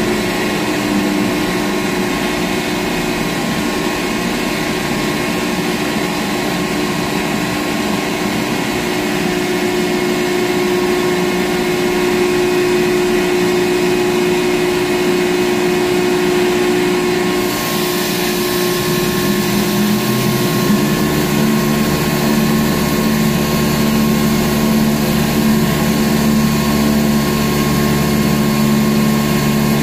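Steady hum of a ship's deck crane machinery, heard from inside the operator's cab, with several steady tones. About 17 seconds in a hiss rises, and a few seconds later a deeper hum joins.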